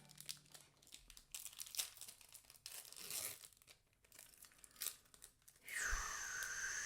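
Foil Yu-Gi-Oh booster pack wrapper being torn open and crinkled by hand: faint, short, scattered rustles and rips. About six seconds in, a steady high whistling tone starts.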